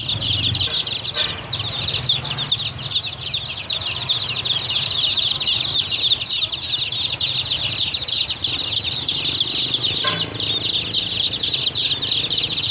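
A crowd of two-day-old chicks peeping nonstop, many short high calls overlapping into one dense chorus.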